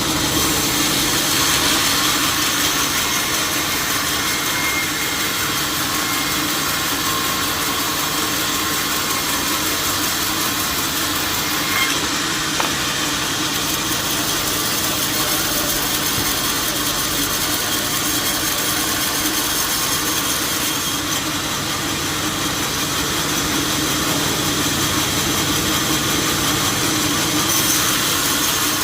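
Sawmill machinery running steadily, a constant mechanical drone with a hum and hiss, with two small ticks about halfway through.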